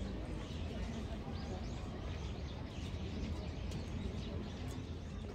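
Small birds chirping now and then over a steady low rumble of outdoor background noise.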